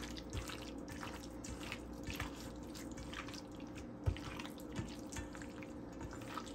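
Raw chicken pieces being mixed through a wet marinade of spices, cream and lemon juice in a stainless steel bowl: irregular soft squelches and light clicks, with one firmer knock about four seconds in.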